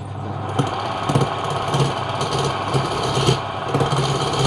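A woodworking machine's motor running steadily, with a short knock about every half second.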